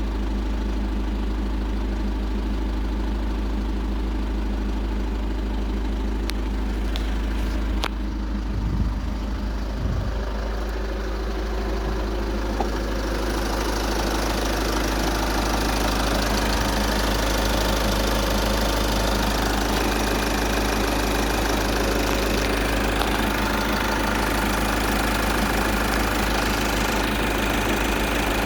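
Volkswagen Golf 6 2.0 TDI four-cylinder diesel engine idling steadily while warm, with a slight clatter that the owner takes for a fault. A few sharp clicks come about six to eight seconds in, and the engine sounds brighter and nearer from about twelve seconds in.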